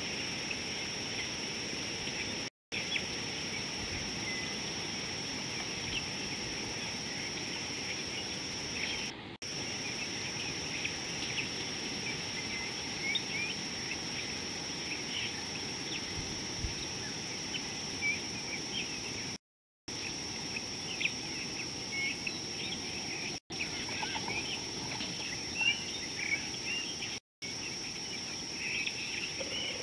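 Outdoor bush ambience: many small birds chirping over a steady high-pitched insect drone and a light hiss. The sound cuts out completely for a moment several times.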